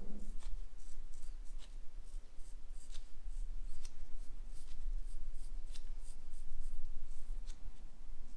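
Straight razor shaving a man's scalp in short, quick scraping strokes, about three a second.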